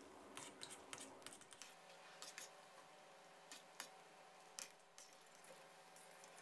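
Battered banana pieces deep-frying in a wok of hot oil, heard faintly as scattered crackles and pops, with light clicks from a wire strainer stirring and lifting them in the steel wok.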